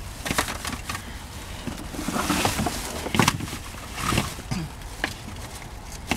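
Rummaging in a truck's back cab: plastic bags rustling and a coiled hose and cables clattering as they are gathered into a plastic basket, with a string of irregular knocks.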